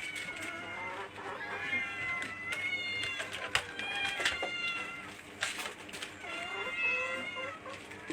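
Several cats meowing at once, their calls overlapping, at feeding time. A few sharp clicks come in around the middle.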